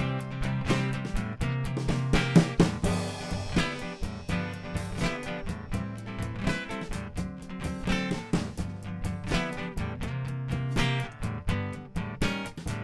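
Live band music with no singing: strummed guitar chords over a drum kit keeping a steady beat with kick and snare.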